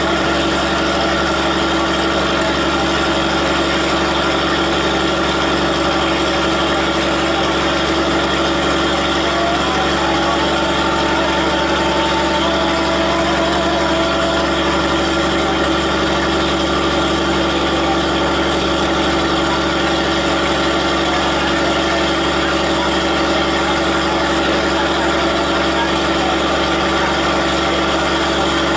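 Passenger train's diesel engine idling, a steady unchanging hum.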